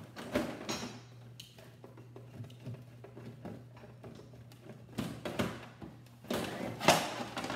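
Hand screwdriver backing out the last screws of a plastic TV stand, with small clicks and scrapes. About six seconds in come louder knocks and clatter of hard plastic as the stand is worked loose from the TV's back.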